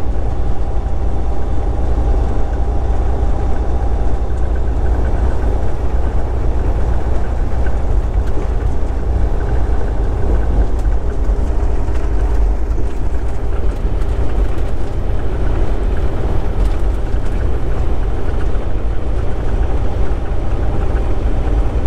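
Steady road and engine noise inside a Volvo 780 semi-truck cab cruising at highway speed, mostly a deep, even rumble.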